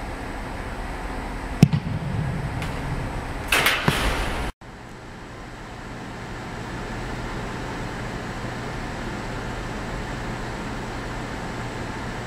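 A football kicked off a holder with one sharp thud, followed about two seconds later by a louder, brief noisy clatter. After that, a steady low hum of indoor building ventilation.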